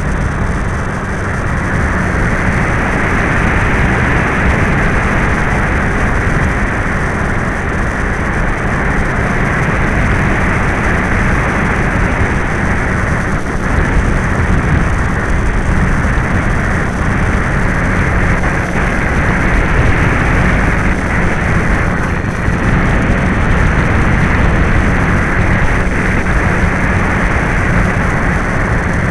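Steady rush of wind and motor noise on the onboard camera of an FMS 1280 radio-controlled trainer plane in flight, in blustery wind.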